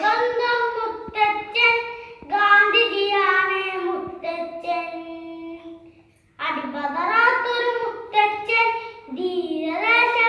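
A young boy singing a Malayalam song solo and unaccompanied, holding long notes, with a brief pause for breath about six seconds in.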